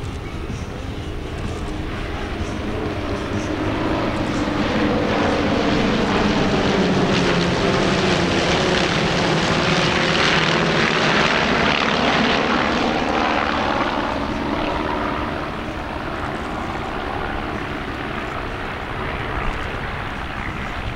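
A formation of small single-engine propeller planes flying past, their engines droning together. The sound builds to a peak about halfway through, the pitch falling a little as they go by, then eases off.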